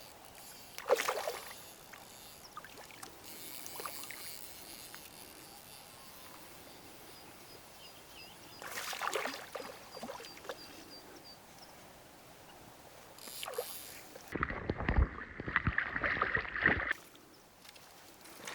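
Water splashing in a few short bursts while a small hooked trout is played at the surface. Near the end comes a louder stretch of about two and a half seconds of splashing and handling noise as the fish is brought in.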